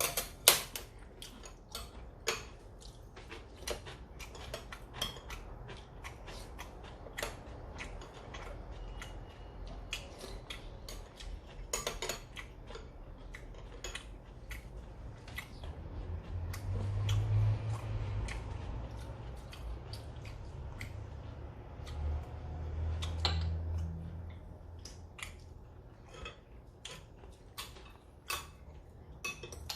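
Eating at a meal table: metal chopsticks and spoons click and tap against dishes at irregular intervals, with chewing. Two low muffled rumbles of about two seconds each come around the middle and a little later.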